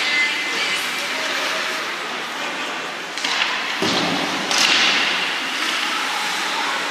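Ice hockey play in an arena: a steady hiss of skates on the ice, broken by sharp stick-and-puck clacks about three seconds in and again near four and a half seconds, with a deeper thud between them.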